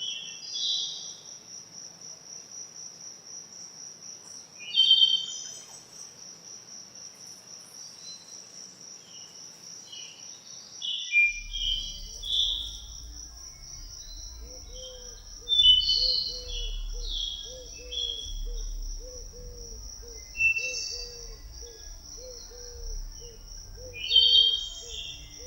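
Forest birdsong: short chirps and phrases from several birds over a continuous high, pulsing insect trill. About halfway through, a low rumble and a lower, evenly repeated chirp join the background.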